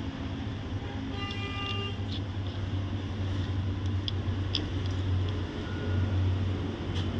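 Steady low hum of vehicle traffic, with a short vehicle horn toot about a second in. Two faint clicks come a little past halfway.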